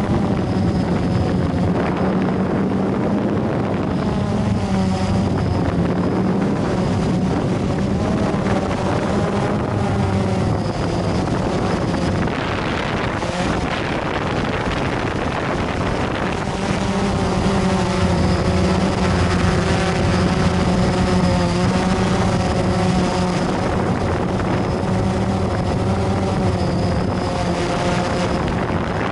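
Blade 350 QX3 quadcopter's electric motors and propellers running in flight: a steady buzzing hum whose pitch wavers up and down as the drone manoeuvres, with wind rush on the microphone.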